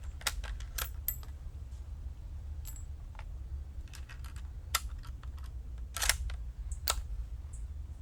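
Scattered sharp metallic clicks from a Mosin-Nagant 91/30 bolt-action rifle being handled: the bolt worked and a single round loaded before the next shot. The clicks come at uneven intervals over a steady low rumble.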